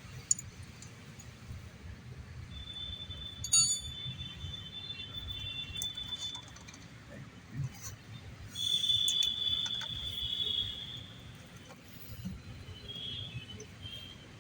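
Metal tools clinking and tapping on disc brake caliper parts, a few sharp clinks with one ringing. Between them come two long, thin, high-pitched squeaky tones, the second louder, lasting about two seconds.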